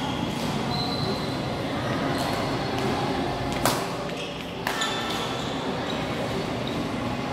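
Badminton rackets striking a shuttlecock during a doubles rally: a sharp crack about three and a half seconds in, the loudest sound, and a second hit about a second later, over background voices.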